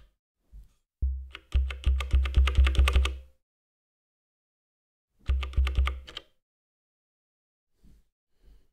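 Elektron Digitakt sampler playing as a subtractive synth: the same low bass note retriggered in quick succession, about eight notes a little over a second in, then a shorter run of about four near the middle, each note with a clicky attack. Faint button clicks between the runs.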